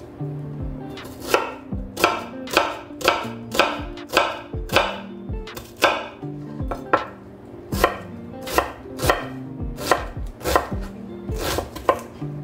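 Chef's knife dicing a peeled onion on a wooden cutting board: each cut ends in a sharp knock of the blade on the board, about twice a second in a steady rhythm.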